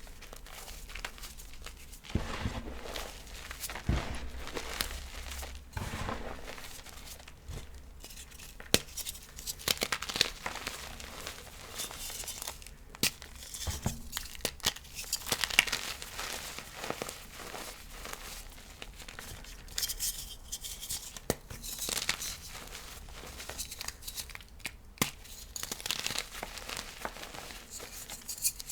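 Chunks of reformed gym chalk being crushed and crumbled, giving irregular crunching and crackling with sharp snaps as pieces break apart.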